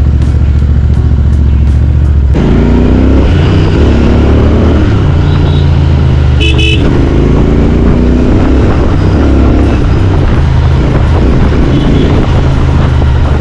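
Royal Enfield Continental GT650's parallel-twin engine running loud through a Power Race slip-on exhaust. About two seconds in the note steps up, and the revs then rise and fall. A brief high beep sounds about six and a half seconds in.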